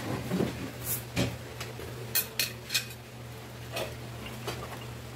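Tableware clinking: utensils knocking against dishes and glasses while food is served, a handful of short sharp clinks in the first few seconds, over a steady low hum.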